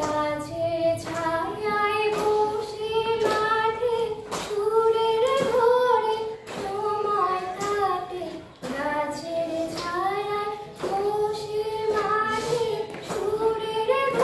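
A woman singing a slow melody unaccompanied, with long held notes that slide between pitches, and light sharp clicks spaced at fairly even intervals behind the voice.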